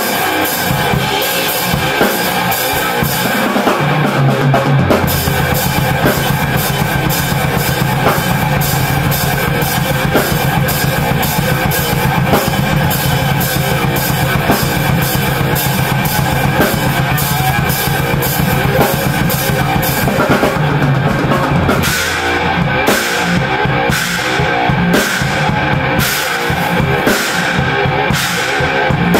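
Heavy metal band rehearsing loud, the drum kit foremost: a fast beat with nearly continuous kick drum and cymbals under the band, typical of double-bass drumming. About two-thirds of the way through, the beat drops to slower, heavier hits roughly a second apart.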